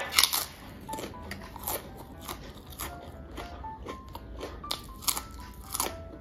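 A crisp ridged fried chip bitten with a loud crunch just after the start, then chewed with a run of crunches about every half second.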